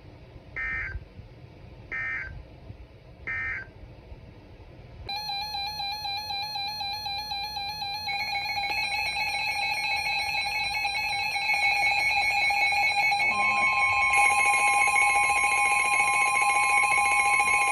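Three short bursts of EAS digital data tones, the end-of-message code after a NOAA Weather Radio broadcast. From about five seconds in, loud warbling electronic alert tones sound in several layers, thickening about eight seconds in. Near the end a steady single tone joins: the 1050 Hz NOAA Weather Radio warning alarm that heralds a severe thunderstorm warning.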